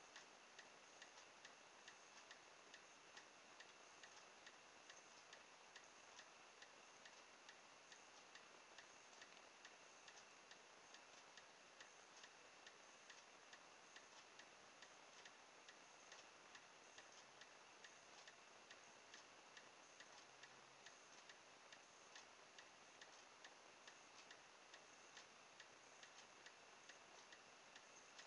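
Near silence with faint, steady, evenly spaced ticking.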